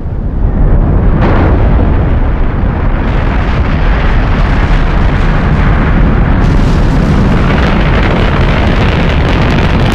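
Saturn V first stage's five F-1 engines firing at launch: a very loud, dense rumble that swells up over the first second and then holds steady. More high crackle joins about a second in and again around six seconds.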